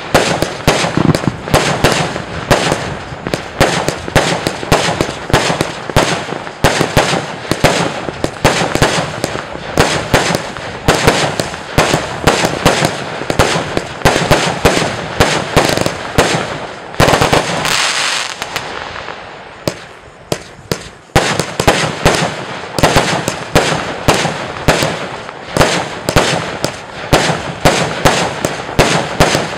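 Compound firework cake firing a rapid, loud string of shots, several sharp bangs a second from launches and bursts. About halfway through, the shots give way for a few seconds to a steady hiss that fades. Then the rapid shots start again.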